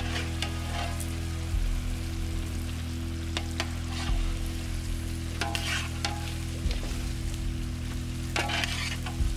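Whole chicken sizzling as it fries in oil in a large iron kadai over a wood fire, with a spatula scraping and turning it several times. A steady low hum runs underneath.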